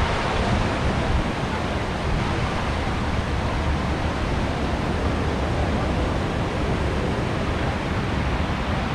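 Wind buffeting the microphone: a steady, fluttering low rumble over an even hiss.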